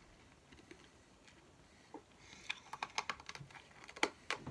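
Orange effervescent hard candy crunched between the teeth: quiet at first, then from about halfway in a quick run of sharp crunching clicks.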